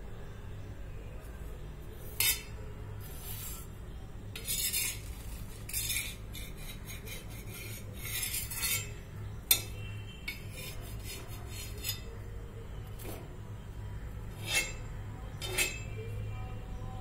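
Occasional short clinks and scrapes of metal kitchenware, about ten scattered through, the sharpest a single click about halfway, over a steady low hum.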